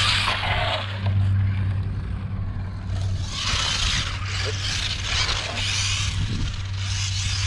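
A 1/16-scale Traxxas Slash RC truck's brushed electric motor and gears whining in bursts as it is driven over concrete, with its tyres scraping; it lands from a jump right at the start. A steady low hum runs underneath.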